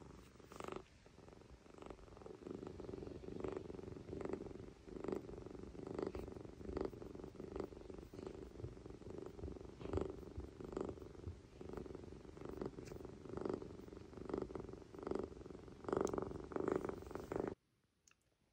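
Tuxedo kitten purring while being stroked, a steady purr that swells in even pulses with each breath, a little more than once a second. It cuts off about a second before the end.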